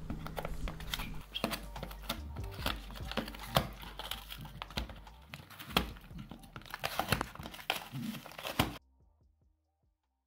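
Dog tearing and chewing a cardboard box: irregular crinkling, ripping and snapping of cardboard and paper, cutting off suddenly near the end.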